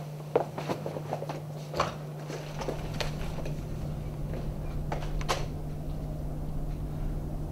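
Room tone with a steady low hum and a few scattered knocks and clicks, the sharpest near the start, about half a second in, near two seconds in and once more about five seconds in.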